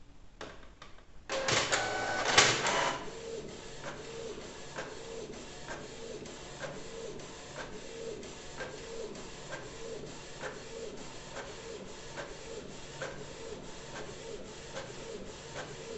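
Canon inkjet printer making a colour print: a louder stretch of mechanical noise about a second in as it starts, then the print head carriage sweeping back and forth, with a click and a short tone repeating about every 0.6 s over a steady motor sound.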